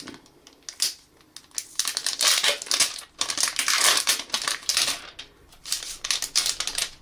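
Thin plastic wrapping crinkling and rustling in several bursts as a new smartphone is handled and unwrapped, with light handling knocks.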